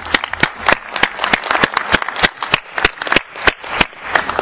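Applause from a seated assembly: many separate hand claps, irregular and distinct rather than a dense roar, thinning out near the end.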